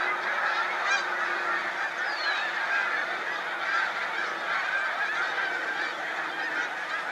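A large mixed flock of snow geese and Canada geese calling all at once: a dense, continuous chorus of overlapping honks.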